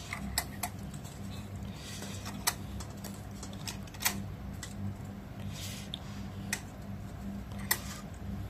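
Irregular light clicks and taps of hard plastic and wiring being handled as wires are tucked back into a rice cooker's plastic housing, over a steady low hum.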